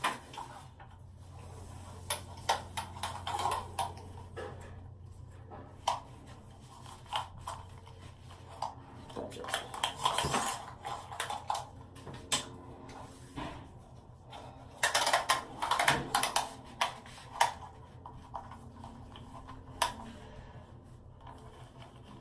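Handling noise of a retractable body-measuring tape in its round plastic case: scattered clicks and small rattles, with two longer rattling bursts about ten and fifteen seconds in as the tape is drawn out and reeled back.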